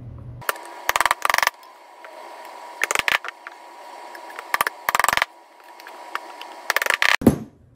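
Red polyurethane bushings creaking in several short bursts as they are forced by hand and with a mallet into the bushing bores of a steel Total Chaos upper control arm.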